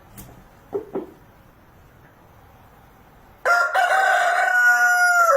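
Rooster crowing: one long, loud held call begins about three and a half seconds in, after two short faint sounds about a second in.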